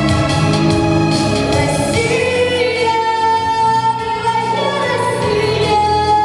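A female voice singing long held notes over instrumental accompaniment.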